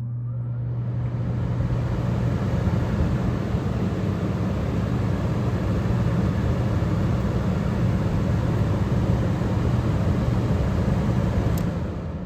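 1977 General Electric Superthrust window air conditioner running: its blower rushes air over a steady low electrical hum, building up over the first couple of seconds. A click near the end, and the airflow starts to die away.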